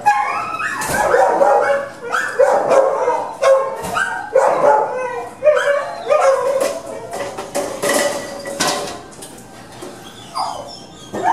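Shelter dogs barking and yelping in their kennels, one bark after another in quick succession, easing off near the end.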